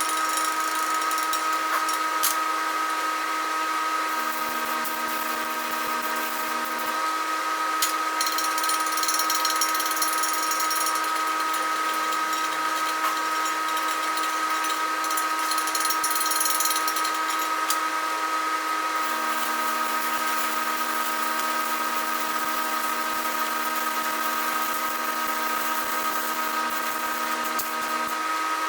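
Electric grinder running steadily with a high motor whine while grinding down weld on a cast-iron housing, with patches of scratchy crackle where the wheel bites.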